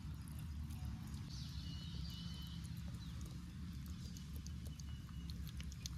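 Hand smearing and pressing wet masala paste onto the skin of a whole fish: soft squelches and small sticky clicks over a steady low rumble.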